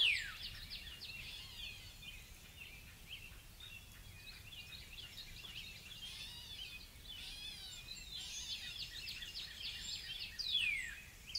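Birds calling: a busy chatter of quick chirps, with a loud whistle that sweeps sharply downward at the start and again about ten and a half seconds in, over a steady low background rumble.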